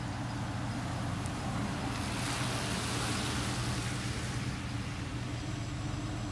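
Steady low mechanical hum, with a road vehicle passing by, its tyre hiss swelling and fading between about two and four and a half seconds in.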